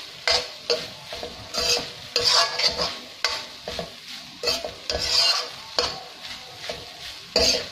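Metal ladle scraping and knocking against a metal kadai as fried rice is stirred and turned, with irregular strokes about once a second over a faint frying sizzle.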